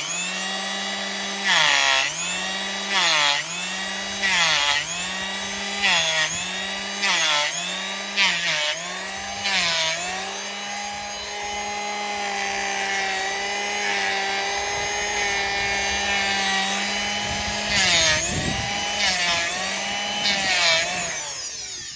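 Handheld electric power tool trimming a donkey's hoof: the motor whine sags each time it bites into the hoof horn and recovers as it lifts off, over a dozen strokes, runs steadily for a while, then takes more cuts and spins down near the end.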